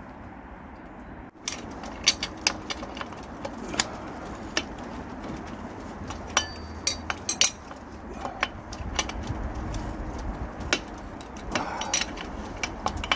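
Metal hand tools and bike parts clinking and knocking irregularly, some strikes ringing briefly, as a Bafang motor is fitted to the bicycle frame.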